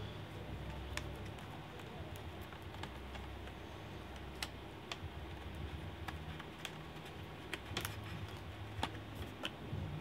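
Scattered short, sharp plastic clicks and snaps as the bottom cover of a Toshiba Satellite P55-A5200 laptop is pried and pulled up along its edges, its retaining clips popping loose, over a low steady hum.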